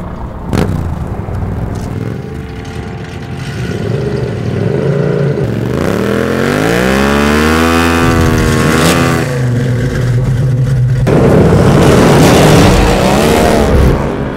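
A car engine and a motorcycle engine running at a standstill, revving: one long rev climbs and falls back about six seconds in, and another comes near the end. The car is a classic Ford Mustang.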